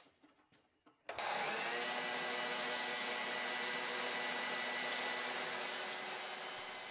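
Spindle sander switched on about a second in: its motor spins up to a steady whine over an airy hiss as the inside of a wooden drawer is sanded against the drum. The sound fades out near the end.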